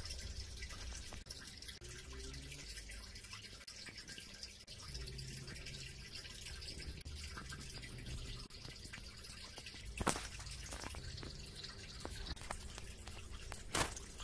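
Low room tone: a steady hiss with a faint hum, broken by two sharp clicks, one about ten seconds in and one near the end.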